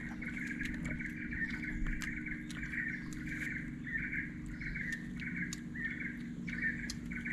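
Birds chirping rapidly and without a break, short repeated calls in a narrow high band, over a steady low hum.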